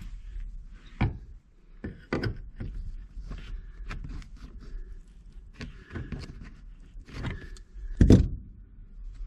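Irregular knocks, clicks and rubbing from a car's rear interior panel being pulled and worked loose against the tabs that hold it, with a louder thump about eight seconds in.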